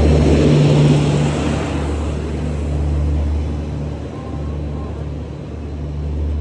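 WDP-4D diesel locomotive's two-stroke V16 engine running at a standstill, a steady low hum. A broad rush of noise on top is loudest over the first two seconds, then eases.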